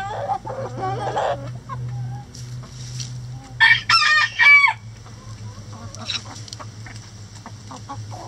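Chickens clucking, then a rooster crows once, loud and in three parts, about four seconds in; short clucks and pecking follow, over a steady low hum.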